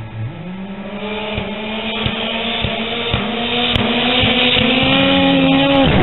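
Racing snowmobile accelerating down a drag strip toward the listener, its engine note climbing slightly and growing steadily louder, then dropping in pitch as it passes close by near the end.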